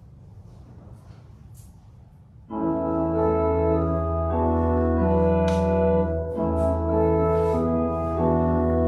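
Faint room hush, then a church organ comes in suddenly about two and a half seconds in, playing slow sustained chords over a held low bass note.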